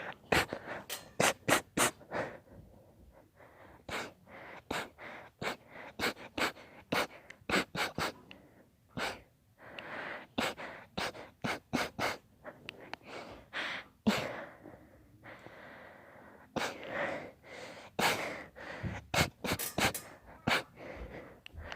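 A person in a sneezing fit, sneezing over and over: many short, sharp sneezes, often several in quick succession, with gasping breaths between them.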